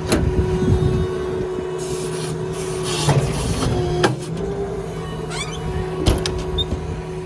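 Hydraulic outrigger on a service truck being retracted: a steady hydraulic pump whine over a running engine, the whine dipping under load, with a few sharp clunks of the control and outrigger and a stretch of hiss in the middle.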